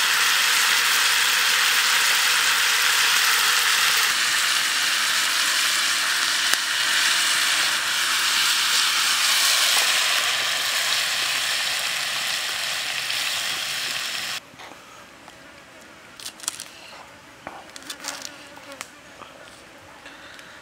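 A loud, steady hiss for about fourteen seconds that cuts off suddenly. After that it is much quieter, with a few sharp knife strokes cutting greens against a wooden chopping block near the end.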